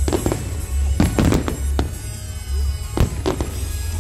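Aerial firework shells bursting in a quick, uneven string of sharp bangs, about eight in all and clustered near the start and around the first second. Under them, loud show music with a steady throbbing bass beat.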